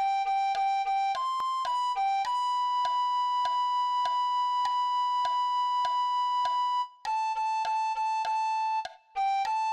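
Soprano recorder melody over a steady ticking beat: a few short notes (G, C, B, G), then a high B held for about four and a half seconds, then a run of repeated A notes.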